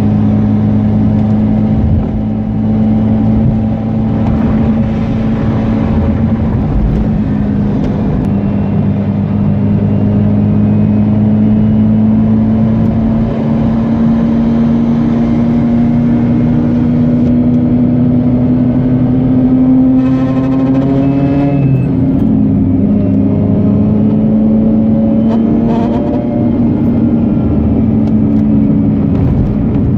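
Mazda RX-8 Renesis rotary engine running hard near 7,000 rpm, its note climbing slowly. About two-thirds through, a loud metal-on-metal rattle comes in under acceleration, and the revs dip slightly. A second burst of rattle follows a few seconds later. The rattle is from a loose heat shield.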